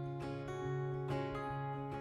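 Acoustic guitar being strummed, its chords ringing on between strokes.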